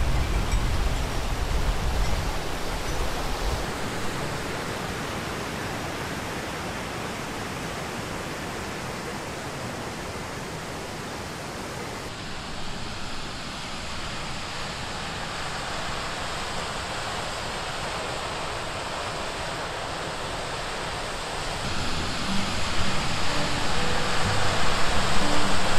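Steady rush of falling and flowing water from an alpine stream and waterfall. Its tone changes abruptly about halfway through, and it grows louder over the last few seconds.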